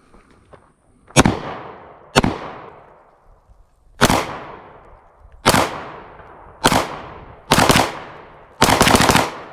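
A SIG P320 M18 9mm pistol firing a string of about seven shots, roughly a second apart and a little faster toward the end, each shot sharp and trailing off in an echo.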